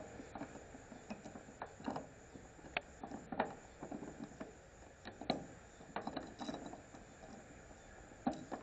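Irregular metal clicks and clinks from a pickup-bed tie-down anchor being worked at an angle into its mounting hole, a few sharper knocks in the middle.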